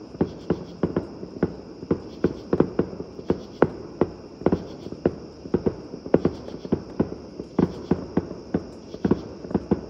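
Fireworks going off in quick, irregular succession: sharp bangs about two or three times a second.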